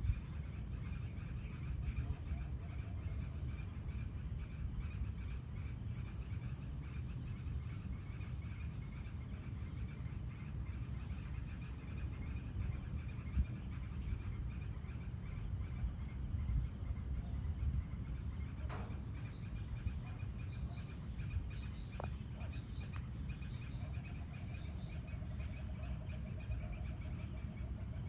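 Evening outdoor ambience of insects: a steady high buzz and a pulsing chirp run throughout, over a low steady rumble. A lower rapid trill joins near the end, and there are a couple of brief clicks about two-thirds of the way in.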